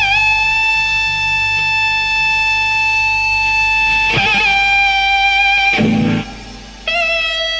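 Background music: a slow lead guitar melody holding long notes with vibrato, moving to a new note about four seconds in and again near the end.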